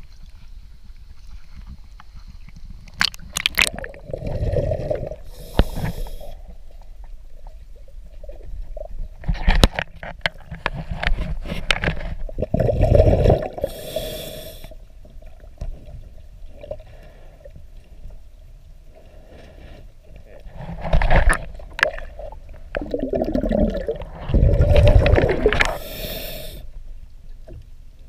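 Diver's scuba regulator heard underwater through the camera housing: three long bursts of bubbling exhalation, with muffled water noise between them.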